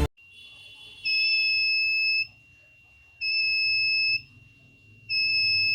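Piezo buzzer of a homemade LDR and BC547 laser security alarm sounding: a high, steady beep about a second long, repeated roughly every two seconds, with a third beep starting near the end and a faint tone at the same pitch between beeps. It is the alarm going off, which this circuit does when the laser beam to the LDR is cut.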